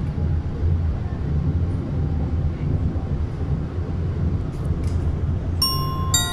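Low-floor city tram passing at low speed, a steady low rumble. Bright glockenspiel-like music notes come in near the end.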